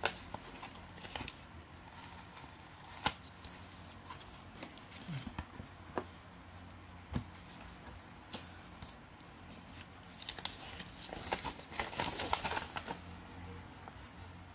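Paper and cardboard being handled: scattered light clicks and rustles, then a denser stretch of paper crackling about ten to thirteen seconds in as a folded paper instruction sheet is opened out.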